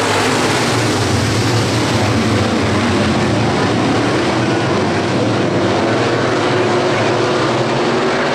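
A field of dirt-track hobby stock race cars at full throttle on the green-flag start, many engines blending into one steady, loud drone.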